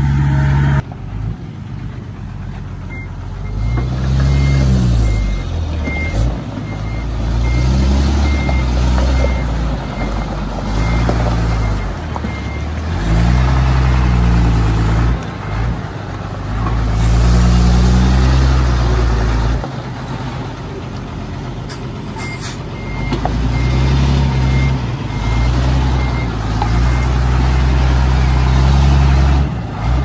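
Bulldozer diesel engine revving up and dropping back again and again as the dozer works under load pushing stone. A backup alarm beeps steadily through two long stretches, from a few seconds in to about halfway, and again later.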